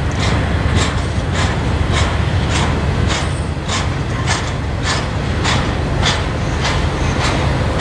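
Norfolk Southern intermodal freight train rolling past, its trailer-carrying flatcars' wheels clicking over the track about every half second above a steady low rumble.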